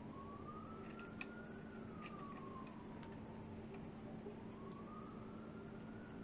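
Faint, far-off emergency-vehicle siren in a slow wail, its pitch rising and falling over several seconds. Behind it is a steady low hum, with a few light clicks in the first few seconds.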